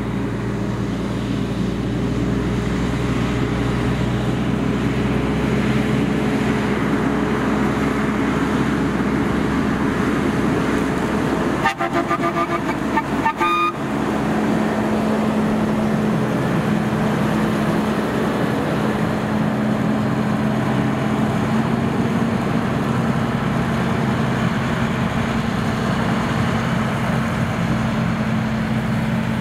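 Diesel engine of a cabover rigid truck running steadily as it drives slowly past. About twelve seconds in, the truck's horn sounds in a few short blasts.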